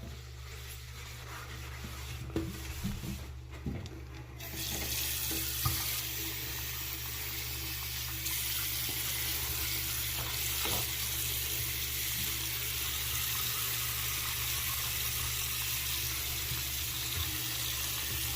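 A few knocks of handling, then, about four seconds in, a tap is turned on and water runs steadily into a bathroom basin, over a constant low hum.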